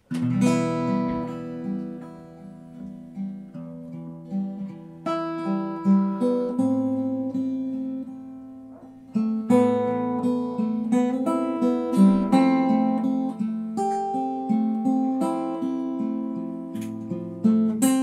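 Solo acoustic-electric guitar picking and strumming ringing chords as a song's instrumental intro. The playing thins out and quietens around seven to nine seconds in, then comes back with a loud chord.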